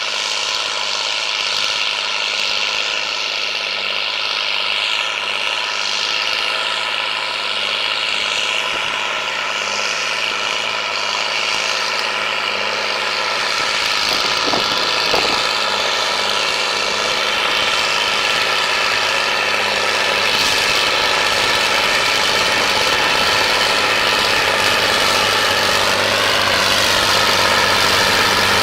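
John Deere 8310 tractor's six-cylinder diesel engine running steadily at a low speed, a little louder in the last third.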